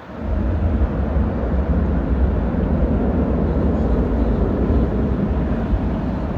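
Airbus A319's jet engines as a loud, deep rumble that comes up suddenly about a quarter second in, holds steady, and eases slightly near the end.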